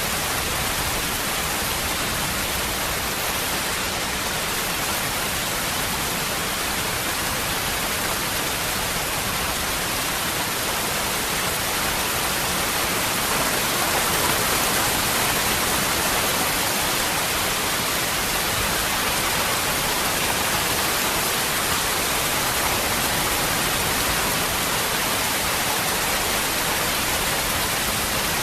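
Waterfall: water falling in a steady, unbroken rush, getting a little louder about halfway through.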